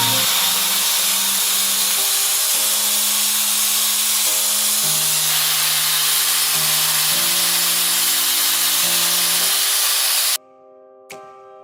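ADEMS Pro sharpening machine running, a loud steady grinding hiss that cuts off suddenly about ten seconds in, with background music underneath and piano music alone after it stops.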